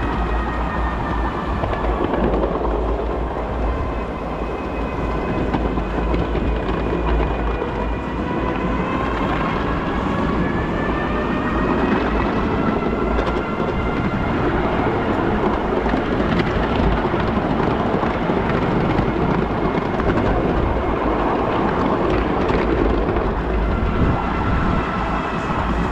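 Ride-on miniature railway train running along the track: a continuous rumble of wheels on rail, with a thin whine that slowly rises and falls in pitch.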